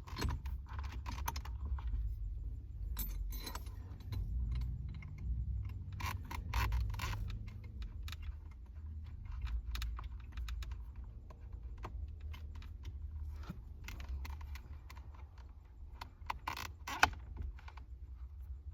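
Irregular small metallic clicks and rattles as a steering wheel puller and its bolts are handled and a stubborn bolt is worked in by hand, with one sharper clack near the end, over a low steady rumble.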